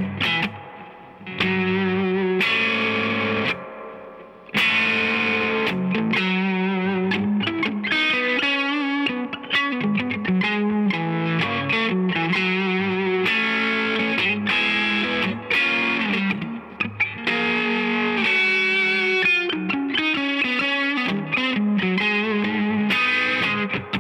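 Electric guitar played through a Mesa Boogie California Tweed tube amp: a Stratocaster with Fender Vintage '65 single-coil pickups, with a mildly overdriven tone. It plays single-note lines and phrases, with two short pauses in the first few seconds and then continuous playing with quick runs.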